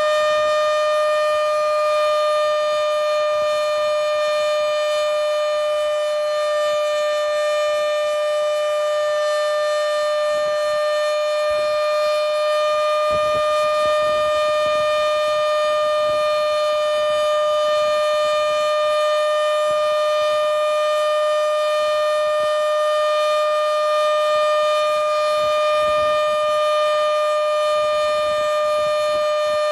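Modified Federal Signal Model 7B outdoor warning siren sounding the steady Alert signal, a loud continuous tone that holds nearly one pitch.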